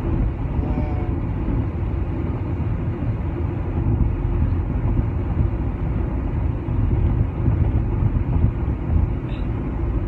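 Steady low rumble of road and engine noise inside a car's cabin.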